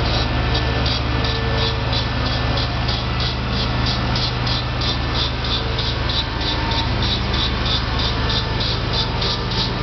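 Steady low engine hum from a vacuum paving-block lifter and its carrier machine running, with a short high chirp repeating about three times a second.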